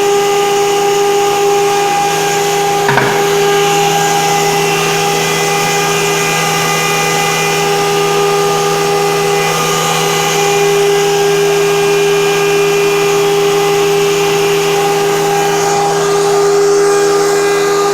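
Flour mill running steadily, with a constant whine over a hiss of air. It is blowing out so much air that flour is thrown out into the room.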